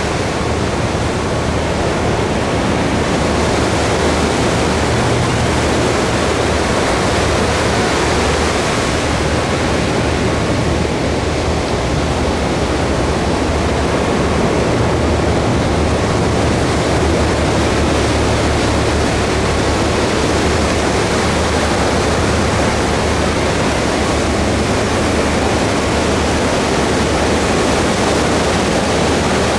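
Ocean surf breaking close to shore and foam washing up the sand: a loud, steady rush of noise.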